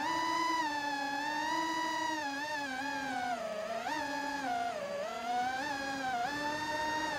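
Holybro Kopis Mini FPV quadcopter's brushless motors and propellers whining on a 5S LiPo, the pitch gliding up and down as the throttle changes.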